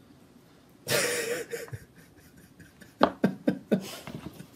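A short breathy chuckle about a second in. Then, from about three seconds, a quick run of sharp clicks and taps as the wire and tools are handled on the wooden workbench.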